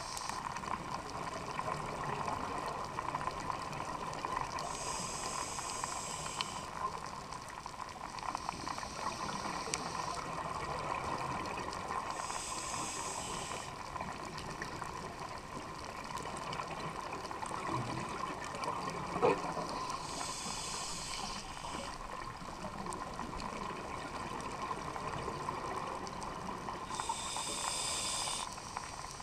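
Scuba diver breathing underwater through a regulator: exhaled bubbles bubble and hiss in five bursts several seconds apart, over a steady underwater hum.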